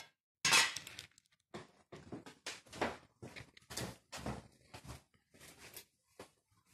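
A plastic cat-treat pouch being handled and shaken out, making a run of irregular rustles and crackles, loudest about half a second in.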